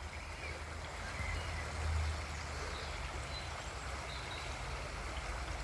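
Steady rush of flowing river water, with a low wind rumble on the microphone that swells about two seconds in. A few faint, short, high chirps sound over it.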